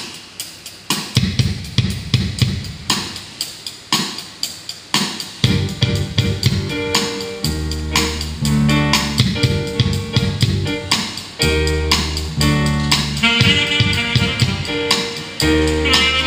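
Live band playing: a drum kit plays a beat on its own for about five seconds, then bass guitar and keyboard come in with a steady groove, and a higher melodic line starts near the end.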